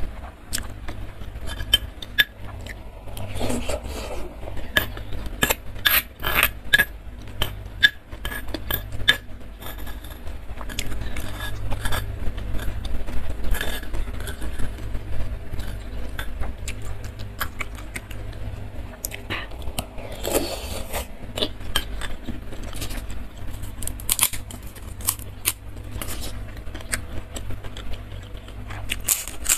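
Close-up eating sounds: a metal spoon clinking and scraping against a stone mortar while scooping fried tofu in thin spicy sauce, with chewing in between. Near the end a crispy cracker is bitten and crunched. A steady low hum runs underneath.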